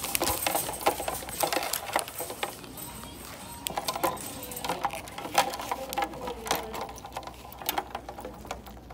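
Shop ambience: frequent sharp clicks and clatters over faint background music and voices, the clicks thinning out near the end.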